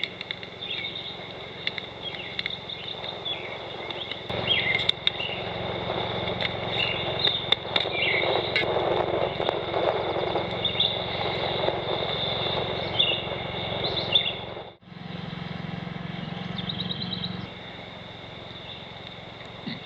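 Songbirds chirping in short rising and falling calls over a steady high insect drone. A stretch of rushing noise sits underneath through the middle, and a short bird trill comes near the end.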